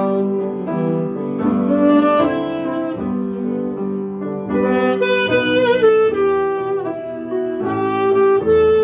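Saxophone playing a slow melody of held notes over grand piano accompaniment, with a wavering vibrato on a note about five seconds in.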